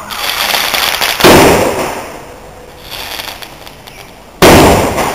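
Fireworks going off: a hiss for about a second, then a sharp loud bang, and a second bang about three seconds later, each fading away over a moment.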